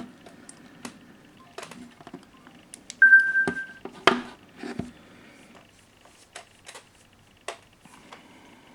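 Phone handling clicks and taps, with one short steady electronic beep from a smartphone about three seconds in, after the ringtone has stopped.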